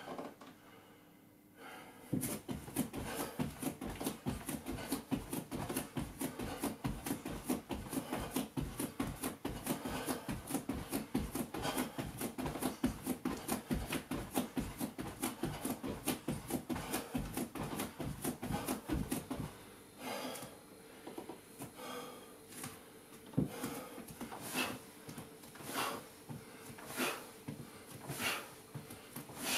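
A person exercising hard: quick rhythmic thumps, about five a second, stop after about twenty seconds. Hard, heavy breathing follows, about one breath a second.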